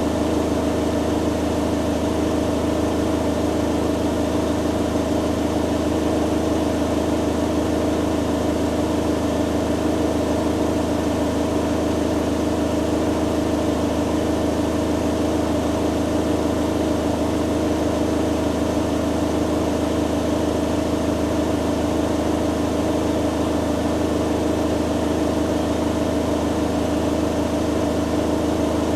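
Hoover Dynamic Next DXA610IW3 front-loading washing machine in its spin cycle, the drum spinning at a steady high speed with an even motor hum and whine.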